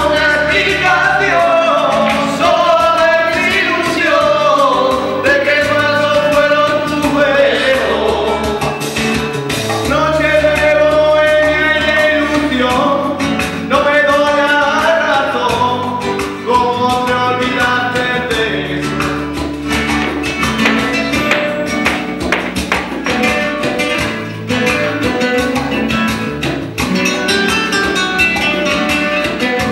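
Flamenco-style Latin pop karaoke track played loud over a pub sound system, with a voice singing into a microphone over it. In the second half the singing thins out and quick, sharp strummed and percussive strokes take over.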